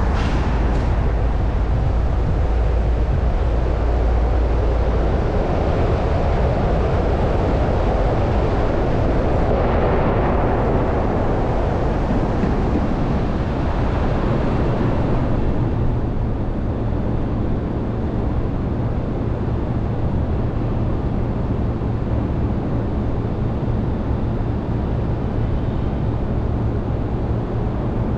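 Car driving, with steady road and engine noise; about halfway through the road noise drops away to a lower, steady hum as the car slows to a stop.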